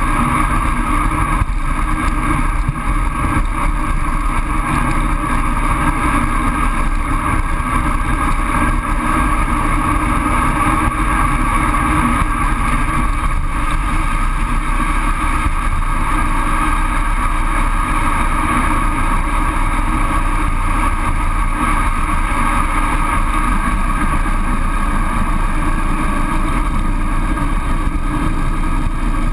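Steady rush of wind and road rumble from a road bike descending at speed, picked up by a handlebar-mounted GoPro. The sound runs evenly with no sudden events.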